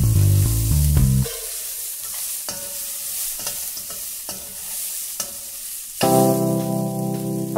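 Red kidney beans sizzling in a stainless steel pan as a metal spoon stirs them, with scattered scrapes and clicks of the spoon against the pan. Background music plays for about the first second, drops out, and a piano-like tune comes back near the end.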